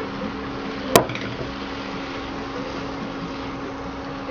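Onion-tomato masala sizzling steadily in oil in a kadhai as raw prawns are tipped in and stirred, over a steady low hum. One sharp knock against the pan about a second in.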